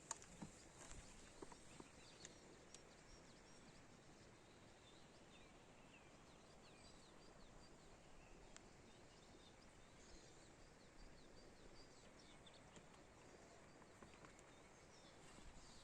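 Near silence outdoors: faint, scattered bird chirps over a low background hush, with a few soft clicks near the start.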